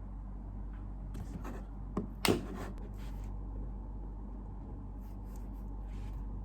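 Small handling sounds: brief rubbing and rustling twice, with one sharp knock a little over two seconds in, over a steady low hum.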